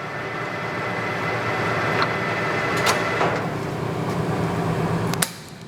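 Clausing Colchester 17 x 60 inch geared-head lathe running at slow speed with the half nuts engaged for threading, its gear train whining steadily with a few light clicks. Near the end a sharp click, and the gear noise cuts off suddenly.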